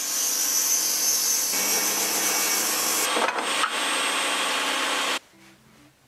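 Bosch table saw cutting through a thick block of wood: a loud, steady sawing noise that cuts off suddenly about five seconds in.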